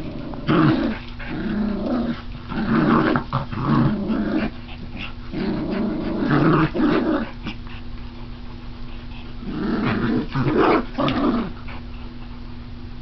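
A miniature schnauzer and a pomapoo growling in play as they tug on a plush toy, in several rough bouts, with a pause of about two seconds before a last bout near the end.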